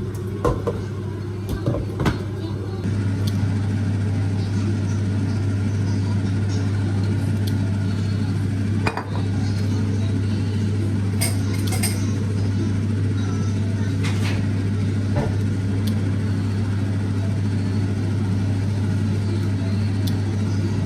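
A steady low machine hum that steps up a little in level about three seconds in, with scattered light clinks of dishes and utensils.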